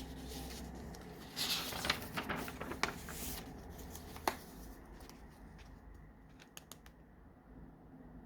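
Paper pages of a handmade junk journal being handled and turned: a stretch of rustling with sharp clicks and taps in the first half, one sharper click just after, then a few light ticks.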